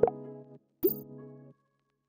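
Animated subscribe-button sound effects: a short rising pop with a chord, then a little under a second in a sharp mouse-click and a second pop with a chord, each stopping abruptly.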